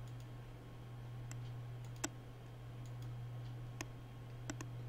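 Computer mouse clicking a few times, short sharp clicks spaced irregularly, over a steady low hum.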